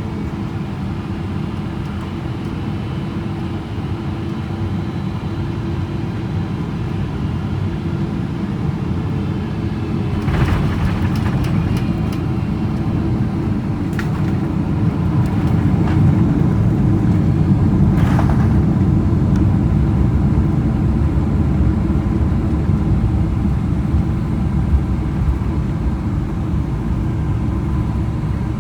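Cabin noise of a Boeing 777-300ER on short final: a steady low rumble of its GE90-115B engines and the airflow, with a faint steady tone, growing louder about a third of the way in. A few sharp clicks or rattles come a little before and after the middle.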